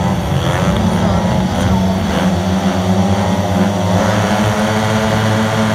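Several speedway motorcycles, 500 cc single-cylinder methanol engines, revving together at the start line while the riders wait for the tapes. The pitch rises and falls in repeated blips over a held high rev.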